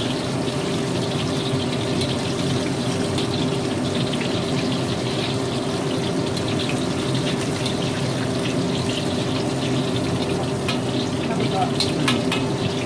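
Battered chicken pieces deep-frying in a wok of hot oil: a steady sizzle with scattered small crackles, over a steady low hum.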